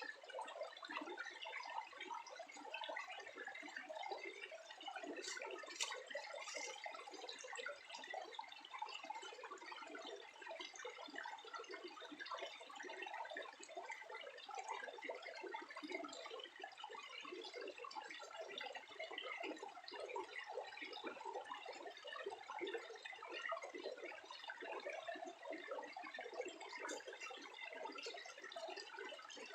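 Steady trickling, splashing water, with a few faint clicks.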